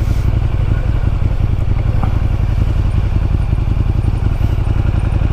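KTM 1290 motorcycle's big V-twin engine running steadily, a loud, even pulsing low note.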